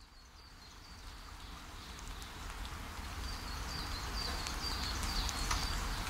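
Outdoor ambience fading in: a steady hiss with short, repeated high bird chirps starting about two seconds in.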